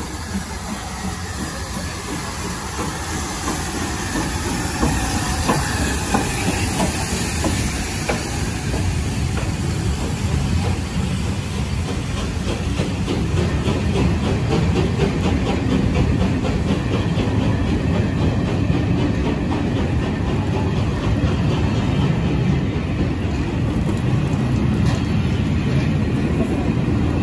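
LNER B1 steam locomotive 61306 Mayflower running through at speed with a hiss of steam, then its train of carriages rolling past, the wheels clicking steadily over the rail joints. The sound grows gradually louder.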